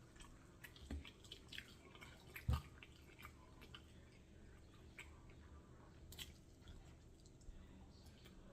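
Faint chewing, with scattered small wet mouth clicks and two soft thumps about one and two and a half seconds in.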